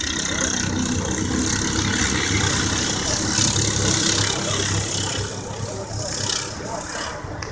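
Racing kart engines running around the circuit: a steady, blended drone of several karts at once, swelling slightly midway.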